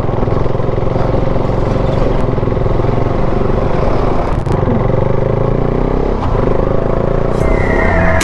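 Single-cylinder engine of a KTM 390 Adventure motorcycle running steadily at cruising speed. A falling tone comes in near the end.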